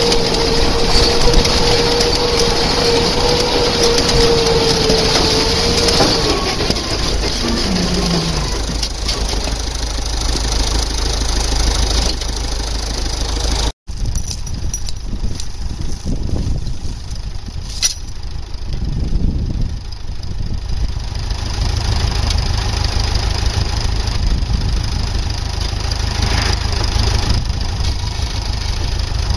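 Vehicle engine running, at first with a steady high whine that falls in pitch about seven seconds in. After a brief dropout halfway through, the engine runs on more steadily at lower speed.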